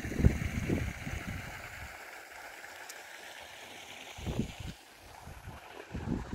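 Wind buffeting a phone's microphone in irregular low gusts, with a lull in the middle, over a steady outdoor hiss.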